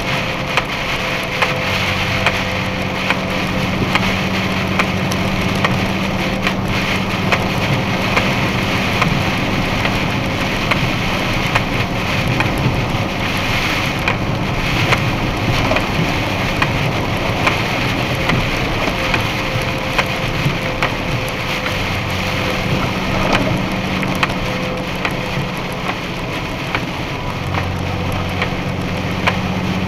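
Heavy rain hitting a box truck's cab and windshield at highway speed, heard from inside the cab: a constant wash of rain with many sharp drop hits, over a steady low drone of engine and road noise.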